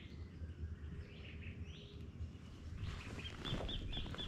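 Faint birdsong: a few short high chirps in the first couple of seconds, then a quick run of five or six high repeated notes near the end.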